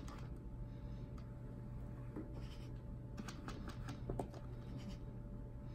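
Faint scratching and a few light clicks as a cat paws at a small wheeled pet robot toy on carpet, the sharpest taps about four seconds in, over a faint steady hum.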